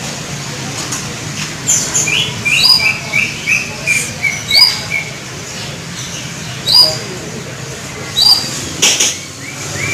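Canary chirping: short sharp high chirps every second or two, with a quick run of short notes that step slightly down in pitch between about two and five seconds in. A single sharp click near the end.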